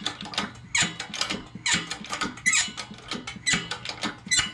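Hydraulic press forcing a tight bearing press ring onto an axle shaft: irregular sharp metallic clicks and squeaks, several a second, as the interference-fit ring is pushed on.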